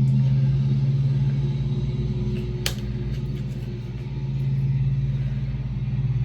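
Lawn mower engine running steadily, a low, even hum. A single brief click a little under halfway in.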